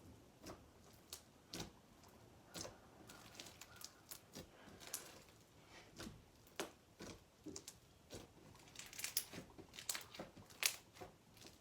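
Foam-bead slime (floam) being squished and stretched by hand: faint, irregular crackles and small pops as the beads and slime shift.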